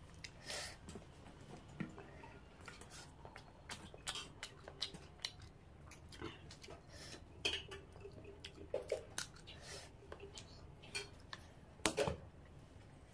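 Close-miked eating of crab curry with rice by hand: wet chewing and mouth sounds with many short clicks and crackles, the loudest about twelve seconds in as a handful goes into the mouth.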